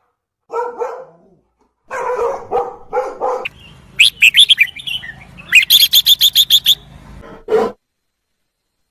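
A string of short barking animal calls, then a bird chirping: first a few separate chirps, then a quick even run of about nine chirps a second, with one more bark near the end.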